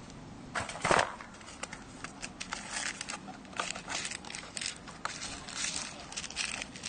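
Handling noise: irregular clicks and short rustling, crinkling bursts, with one loud sharp knock about a second in.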